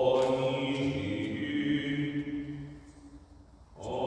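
Orthodox liturgical chanting: a long sung phrase held on steady notes, fading about three seconds in, with the next phrase starting near the end.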